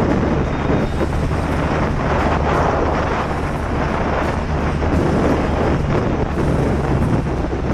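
Motorcycle riding at a steady cruise, heard from the rider's seat: the BMW R nineT's boxer twin runs at an even pitch under heavy wind rush on the microphone.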